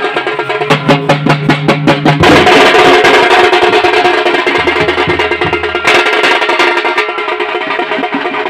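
A drum troupe of large bass drums and smaller slung side drums beaten with sticks, playing a fast, dense rhythm.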